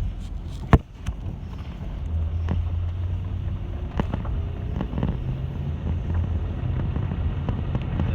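Steady low road and engine rumble heard inside a moving car's cabin, getting heavier about two seconds in, with scattered light knocks and one sharp click just under a second in.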